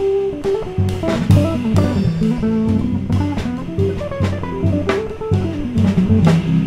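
Jazz trio of electric bass guitar, electric guitar and drum kit playing live. A busy, moving bass line runs under cymbal and drum strikes.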